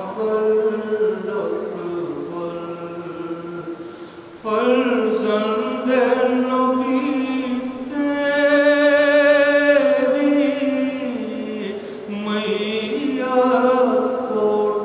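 A man chanting an elegiac recitation into a microphone, in long held notes with a wavering vibrato; the longest note is held for about two seconds, about eight seconds in.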